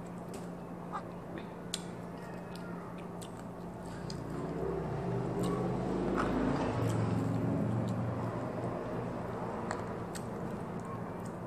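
Someone eating with bare hands: chewing, with small clicks and taps of fingers picking through fish and noodles on a plate, over a steady low hum. A louder, low drone with a wavering pitch swells up about four seconds in and fades by about nine seconds.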